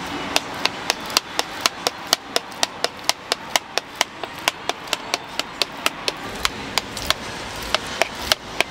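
A knife chopping down through a tub of red bean paste, tapping against the tub bottom in quick sharp knocks, about three a second, scoring the paste into portions for bungeoppang filling. The knocks pause briefly about three-quarters of the way through, then resume.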